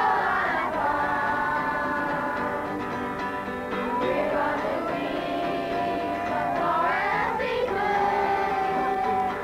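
A children's choir singing together, holding long notes with a few sliding pitch changes between them.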